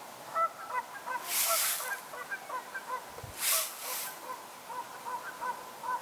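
Canada geese honking, many short calls overlapping at several pitches, two or three a second. Two brief rushing noises, about a second and a half in and again past the middle, are the loudest sounds.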